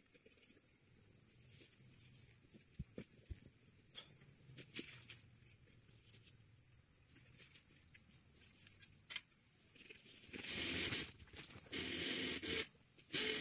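Faint outdoor ambience of insects: a steady high buzzing with three short, higher hissing swells a few seconds apart. Near the end come several louder bursts of rustling.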